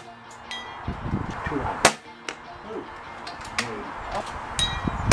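Air rifle shots, each a sharp crack, followed after a short delay by the metallic ping of pellets striking distant steel ringing-plate targets. The pings carry a brief high ringing tone. There are about half a dozen sharp sounds in all, the loudest a little under two seconds in.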